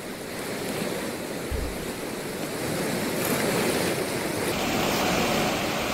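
A river in spate after heavy rain, its fast floodwater rushing with a steady, even wash of noise.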